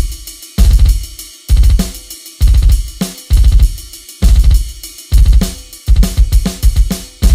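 Electronic drum kit being played: heavy bass-drum hits with snare, hi-hat and cymbal wash about once a second, quickening into closer hits around six seconds in.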